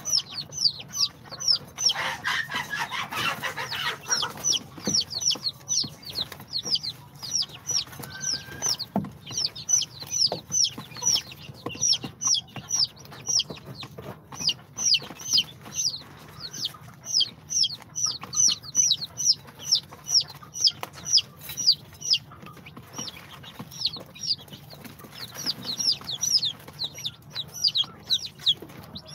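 A brood of day-old chicks (İspenç, Brahma, bantam Cochin and Sultan) peeping almost without pause: many short, high cheeps that fall in pitch, several a second, with a brief rustle about two seconds in.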